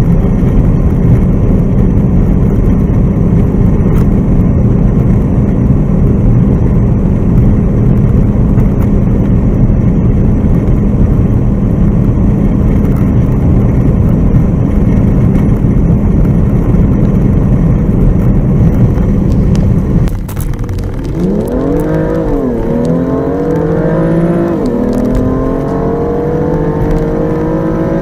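A sports car filmed from inside at high speed: a steady loud drone of engine, wind and tyres. About 20 s in it cuts to a car accelerating hard under full throttle, the engine note climbing, falling at an upshift about three seconds later, then climbing again to a second upshift at the very end.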